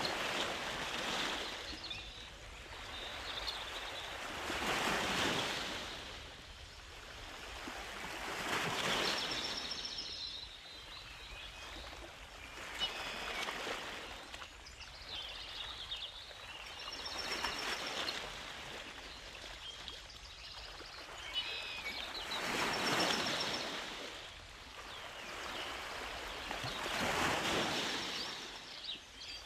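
Small sea waves washing ashore, the rush of surf rising and falling about every four to five seconds, with a few faint high bird chirps.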